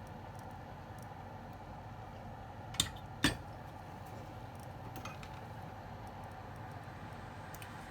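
Two sharp metallic clinks a fraction of a second apart, then a few faint ticks, from small metal repair tools being handled and set down on a workbench during an e-reader USB connector repair. A steady low hiss runs underneath.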